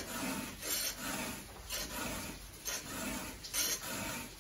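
A 3/16-inch round chainsaw file rasping back and forth across a saw-chain cutter tooth, in a steady run of strokes about one every two-thirds of a second. The file is being pushed down into the gullet below the top plate to sharpen the tooth.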